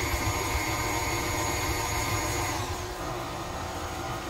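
KitchenAid stand mixer motor running under load as it mixes ground beef, breadcrumbs and egg for meatloaf: a steady motor hum with a high whine. The whine holds at one pitch, then drops lower a little under three seconds in, as the mixer's speed falls.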